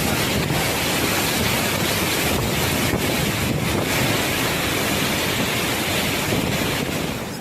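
Strong typhoon wind gusting hard against the microphone: a loud, steady rushing noise that cuts off near the end.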